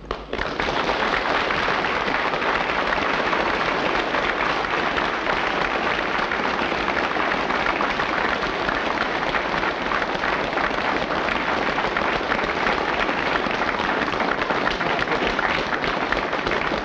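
Audience applauding, starting suddenly about half a second in and keeping up a steady, dense clatter of clapping.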